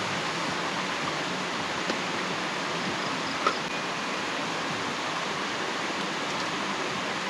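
Stream running steadily after rain, an even rushing of water, with a small click about three and a half seconds in.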